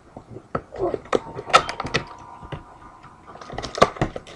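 A sealed card box being opened and its foil packs handled: scattered sharp knocks, taps and rustles of cardboard and packs, loudest about a second and a half in and again near the end.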